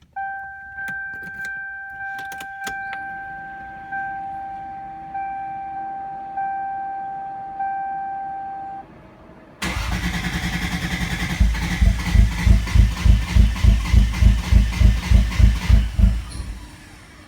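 A steady electronic warning tone for about nine seconds, then the Toyota Supra's 2JZ-GTE straight-six cranking on the starter for about seven seconds with an even pulsing of about four beats a second. It wants to start but never catches: it cranks but won't run, which the owner suspects is flooding.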